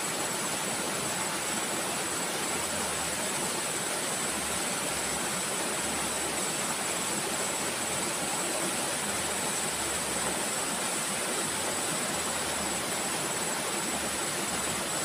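Steady rushing of flowing river water with a continuous high-pitched insect drone over it.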